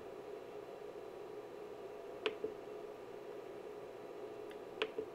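Two short clicks, about two and a half seconds apart, from the front-panel knob and buttons of a Rigol DS1104Z-S Plus oscilloscope as a trigger value is entered digit by digit, over a faint steady hum.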